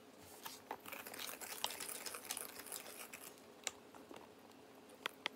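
Faint swishing of a wire whisk stirring chocolate batter in a stainless steel bowl, with a few sharp clinks of the whisk against the bowl.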